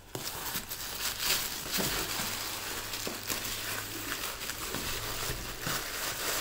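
Tissue paper and plastic bubble wrap crinkling and rustling as hands dig through a cardboard box and pull out a wrapped jar: continuous crackling with many small sharp clicks.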